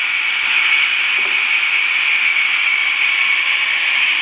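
Sawmill saw blade running through wood: a loud, steady, high hiss that does not change.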